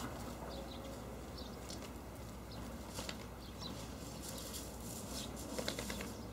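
Irish wolfhound puppies scuffling and play-fighting on dry ground and grass, with light clicks and rustles and a brief flurry of louder clicks near the end. Faint short high chirps come and go throughout.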